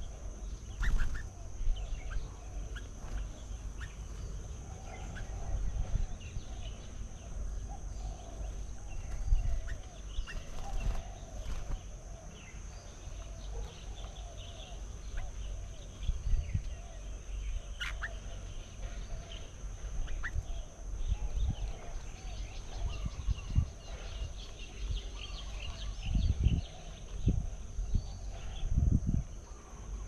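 Several birds chattering and calling in short scattered phrases, over a steady high-pitched drone and a low rumble that swells near the end, with a few sharp clicks.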